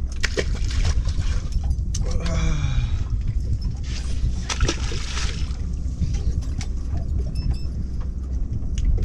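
On a fishing boat: a steady low rumble with water sloshing against the hull, scattered sharp clicks and knocks, and a short voice about two seconds in.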